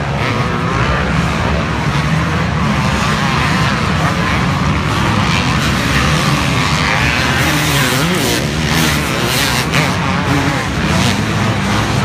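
A pack of motocross dirt bikes racing at once, their engines buzzing and revving, with the pitch wavering up and down as riders work the throttle over the jumps.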